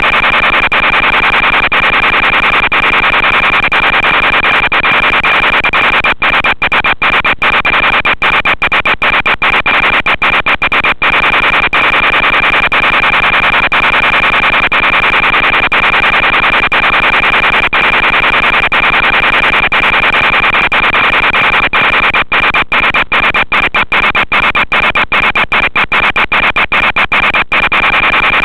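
Analog FPV video-link audio: loud, steady static hiss with a thin high whine through it, broken by many brief dropouts in two stretches, from about six to eleven seconds in and again near the end.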